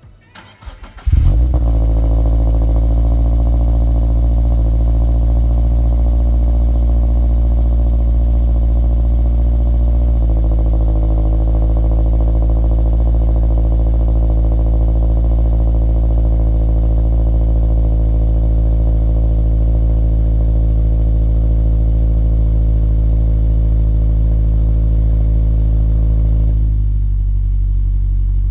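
Cold start of a 2.4-litre flat-four boxer engine breathing through an unequal-length header and an A'PEXi N1 Evo Extreme single-exit cat-back exhaust. It fires about a second in and settles into a steady, loud fast idle, which drops in pitch about ten seconds in and again near the end as the cold idle comes down.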